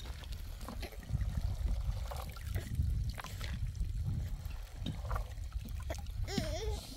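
Water trickling and splashing over a steady low rumble, with scattered light knocks, and a short wavering cry about six seconds in.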